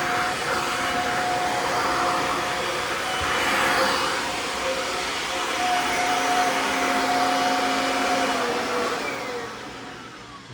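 Kirby vacuum cleaner running with its pet grooming attachment: a steady motor hum over rushing suction air. Near the end it is switched off and winds down, its pitch sliding lower as it fades.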